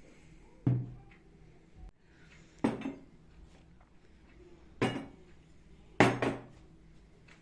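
Four sharp clattering knocks of hard objects, about two seconds apart, each with a brief ring. The last, near the end, is the loudest.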